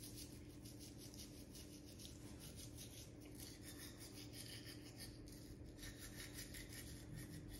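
A child brushing her teeth with a manual toothbrush: faint, quick back-and-forth scrubbing of the bristles, several strokes a second.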